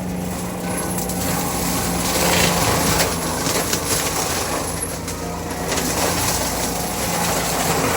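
A John Deere 333G compact track loader's diesel engine runs steadily while its forestry mulcher head shreds brush and wood. Louder stretches of grinding and crackling rise over the engine now and then.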